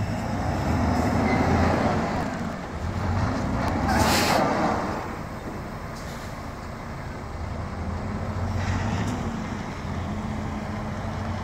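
Semi truck's diesel engine running at low speed as the tractor-trailer backs up, its rumble swelling and easing. About four seconds in comes a sharp burst of air hiss lasting about a second, typical of the air brakes, and a fainter hiss follows near the end.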